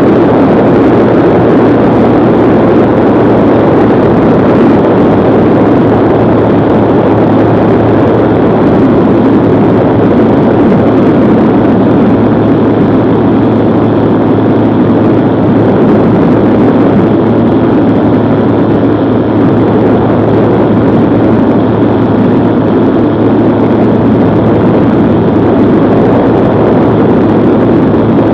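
Bensen B8M gyrocopter's engine and pusher propeller running steadily in level flight: a loud, unchanging drone with a steady low hum underneath.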